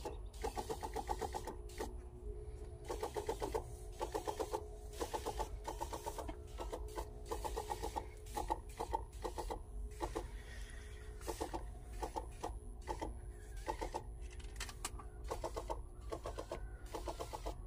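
Electric backpack sprayer's pump running while the lance sprays, giving a fast, rhythmic clatter over a steady hum. The clatter comes in bursts that start and stop throughout.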